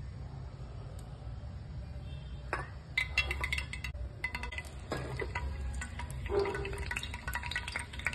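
Hot cooking oil in a pan crackling and spluttering, with a rapid, irregular run of sharp pops starting about two and a half seconds in: seeds popping in the oil of a tempering. A low steady hum runs underneath.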